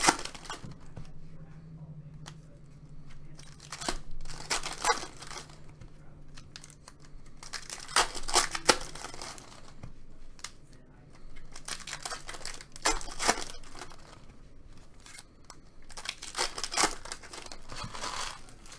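Trading card pack wrappers being torn open and crinkled in about five short bursts a few seconds apart, with quieter handling of cards between them.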